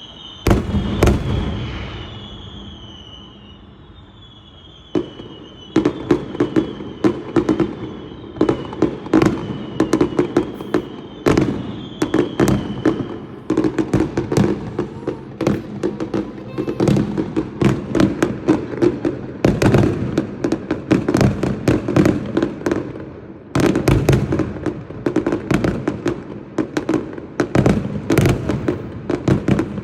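Fireworks going off: a loud bang about half a second in, then from about five seconds on a near-continuous barrage of bangs and crackles. Through the first dozen seconds, high whistles fall in pitch.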